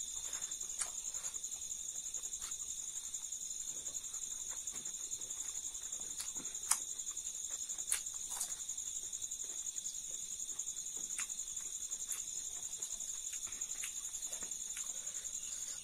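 Crickets chirping in a steady, rapid high trill, over soft eating sounds: chewing and a few sharp crunches. The two loudest crunches come about seven and eight seconds in.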